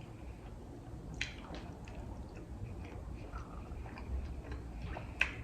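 Close-up mouth sounds of someone chewing a sushi roll with cream cheese: soft wet squishes and small lip and tongue clicks, with a sharper click about a second in and another near the end.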